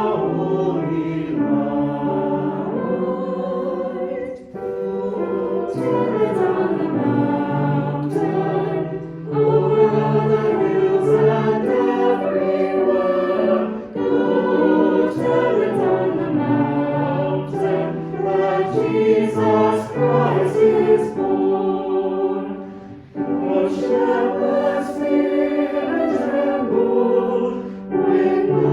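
Choir singing in long sustained phrases, with short breaks between them.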